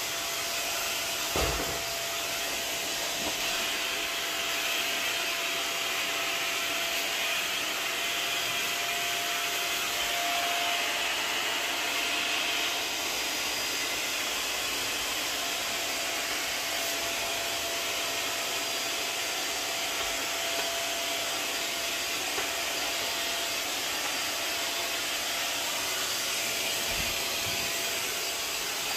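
WAP Wapore Up vacuum and steam mop running steadily as it is pushed over a tile floor, its motor giving a steady whine. One knock about a second and a half in.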